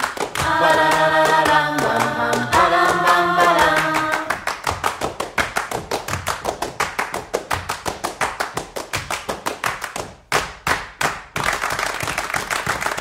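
Background song with singing. After about four seconds it gives way to a fast, even run of percussive taps. A few sharper clicks and a short noisy stretch come near the end.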